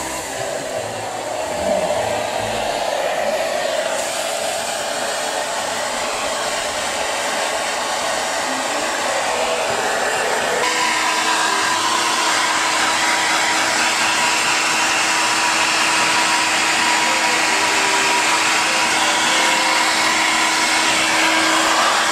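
Hair dryer running steadily. About halfway through, its sound shifts and a steady hum comes in.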